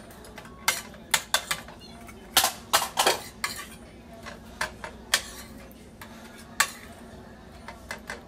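A metal spoon clinking and scraping against a stainless steel frying pan as chicken strips are turned in sauce. The clinks are irregular and sharp, with a quick cluster from about two and a half to three and a half seconds in.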